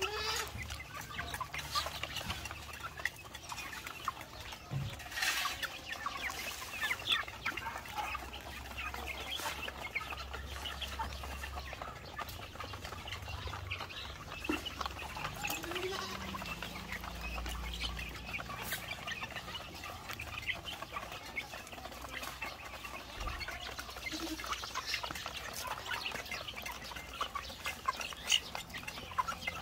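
Chickens clucking at intervals while they feed.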